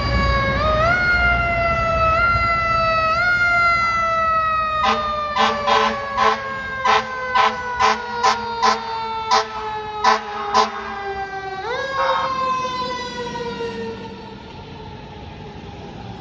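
Fire engine's siren wailing, its pitch stepping up and gliding slowly down, broken in the middle by about a dozen short horn blasts in quick succession. The siren then winds up again and grows fainter near the end as the engine moves away.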